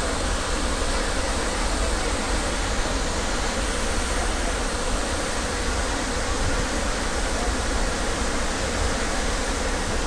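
Floodwater released through a hydroelectric dam's open spillway gates, pouring down a rocky rapids channel: a steady, loud rushing with a deep rumble underneath.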